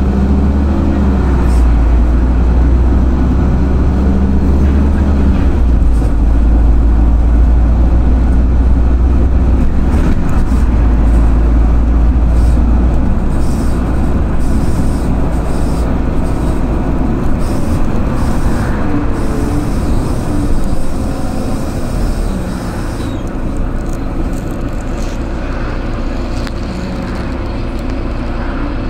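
A bus running at road speed, heard from inside the cabin: a steady low engine drone with tyre and road rumble. Past the middle the rumble eases and the sound grows quieter as the bus slows down.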